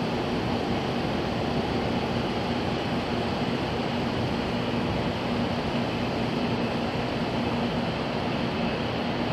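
Steady hum and rush from a parked train's onboard equipment running while the train stands being readied, with one low drone held unchanged throughout.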